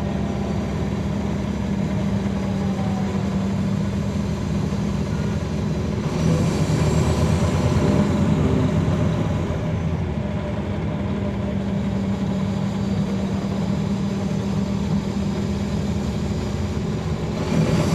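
Caterpillar C13 ACERT diesel engine of a 2009 NABI 40-foot transit bus, heard from the rear seats inside the bus, running with a steady low hum. It grows louder for a few seconds about six seconds in, with a faint rising whine, and louder again near the end.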